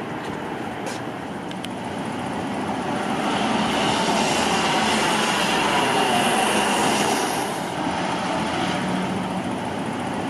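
Double-decker city bus driving past on a street over steady traffic noise, its engine and tyres swelling to a peak in the middle and then fading.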